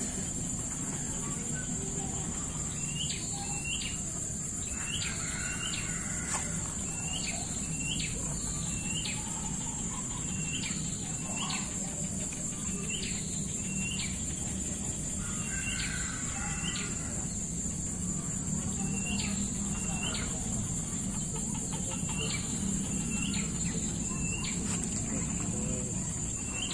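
Outdoor nature ambience: insects keep up a steady high-pitched drone, while a bird repeats short chirping calls, often in pairs, about once a second from about three seconds in.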